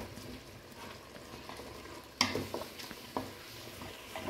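Chicken pieces sizzling in a steel pot as a spatula stirs them, scraping and knocking against the pot; one sharp knock about two seconds in is the loudest. The chicken is frying in its own juices released by the yogurt, with no water added.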